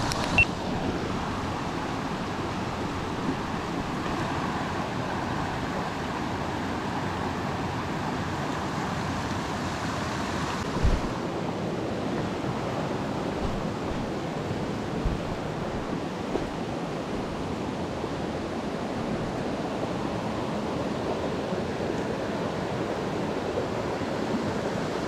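Small creek's water rushing steadily over rocks, with a brief low bump about eleven seconds in.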